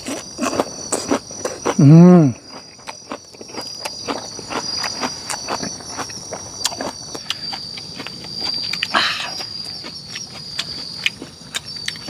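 Crisp crunching bites into a whole raw red onion, over the steady high trilling of night insects. About two seconds in, a man lets out a short, loud groan that rises and falls in pitch.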